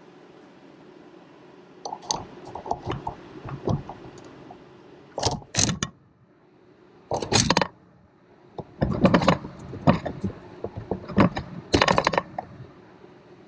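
Ratchet wrench clicking in several bursts of quick strokes, with metal rattles, as the AC compressor's bottom mounting bolt is worked loose.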